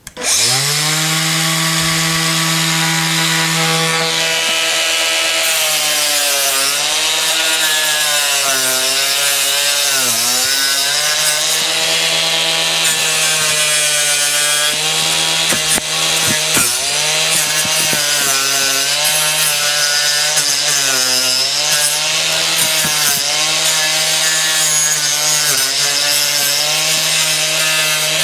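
Makita angle grinder with a chainsaw-type carving disc spinning up with a rising whine, then running and carving into pine deadwood. Its pitch dips repeatedly each time the disc bites into the wood, over the rasping of the cut.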